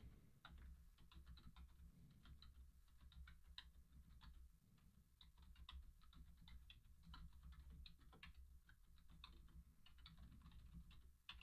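Very faint, rapid typing on an IBM Stealth Quiet Touch keyboard: a quick stream of soft key clicks, very quiet, with a brief pause about halfway through.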